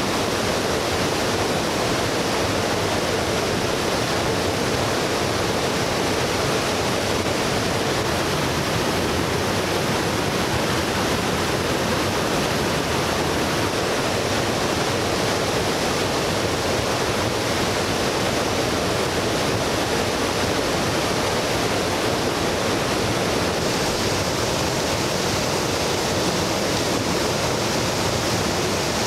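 Small waterfall pouring into a rock pool: a steady, unbroken rush of water.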